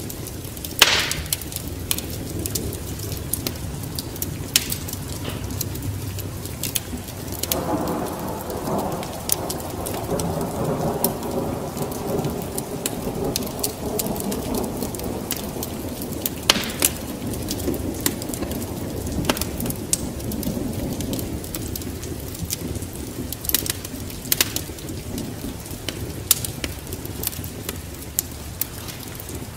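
Steady rain with a long rolling rumble of thunder that swells about seven seconds in and fades over several seconds, while a wood fire crackles and pops with sharp clicks throughout.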